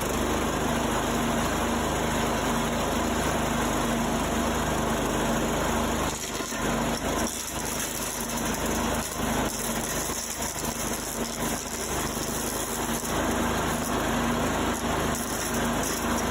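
Small lawn mower engine running at speed, spinning the blade of a homemade wood chipper made from a mower deck stood on its side. About six seconds in the sound turns uneven, with irregular dips and short sharp cracks over the engine.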